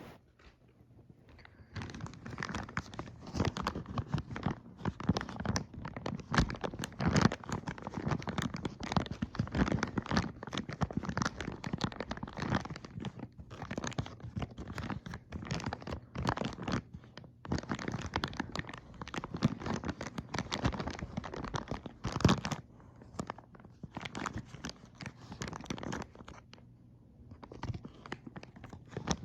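Toy packaging being crinkled, crunched and torn open by hand: a busy run of crackling and rustling that starts about two seconds in and pauses briefly a few times.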